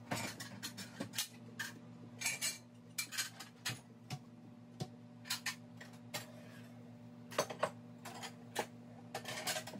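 Dishes and cutlery clattering as they are put away into kitchen cabinets: a string of irregular clinks and knocks of plates and utensils, over a steady low hum.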